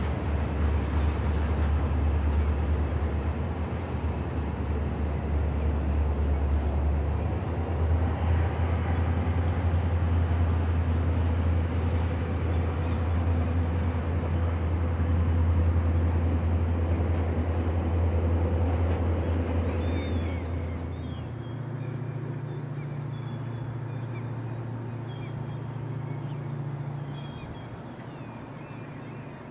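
EMD 645-series diesel engine of an MZ locomotive idling, a steady low rumble. About two-thirds of the way in the sound drops to a quieter, slightly higher hum, with faint high chirps.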